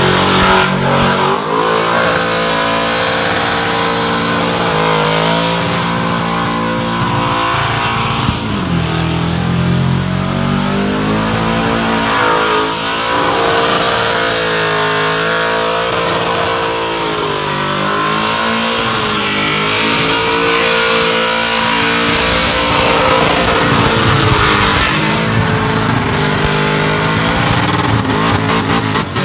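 Supercharged Holden Commodore ute's engine revving hard through a burnout, its pitch swinging up and down again and again as the throttle is worked. The hiss of the spinning rear tyres runs underneath.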